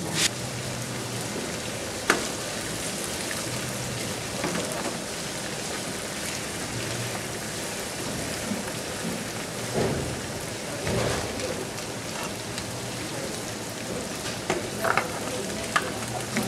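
Chopped garlic sizzling steadily in hot oil in a steel frying pan, being fried until lightly brown for a tadka. A few sharp ticks of the stirring spoon against the pan, one about two seconds in and several near the end.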